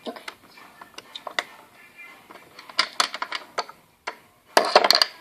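Irregular clicks and clattering of small hard objects being handled, with a louder, denser rattle about a second before the end.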